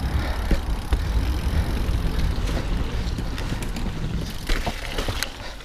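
Mountain bike riding along a dirt trail: steady tyre and rolling noise with low wind rumble on the action-camera microphone and a few light clicks and rattles from the bike.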